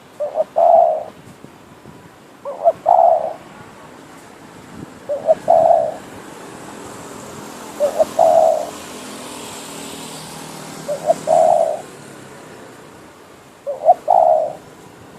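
Decoy spotted dove cooing: six short phrases, each a quick lead-in note followed by a longer coo, repeated about every three seconds.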